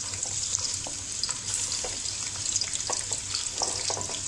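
Sliced onions sizzling in hot oil in an aluminium kadhai: a steady frying hiss, with scattered light clicks and taps as more slices drop into the pan and are pushed in with a wooden spatula.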